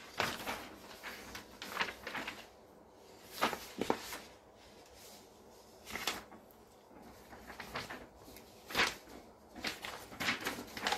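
Faint handling noises: soft knocks and rustles, scattered every second or so, close to the microphone.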